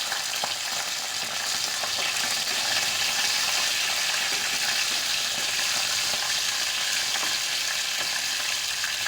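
Hot oil sizzling in a kadai with a tempering of mustard seeds, cumin, urad dal, dried red chillies, curry leaves and freshly added garlic: a steady hiss with scattered small crackles.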